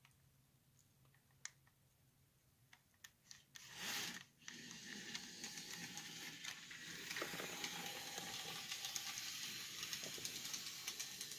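Model railroad switcher locomotive running along the track, a faint steady mechanical running sound with many small clicks that starts about four seconds in, after a few isolated clicks.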